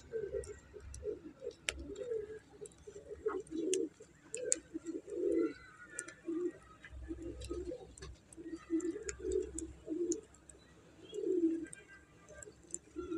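Pigeons cooing: a steady run of short, low coos repeating throughout, with faint scattered clicks.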